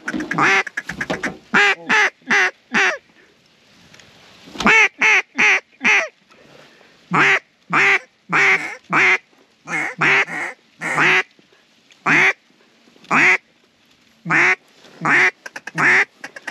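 Mallard quacking: loud quacks in runs of several, about three a second, with short pauses between. There is a quick run of short chattering notes about a second in.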